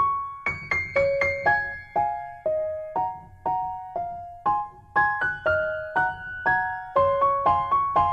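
Background music: a gentle piano or electric-piano melody of short, quickly fading notes at an even tempo.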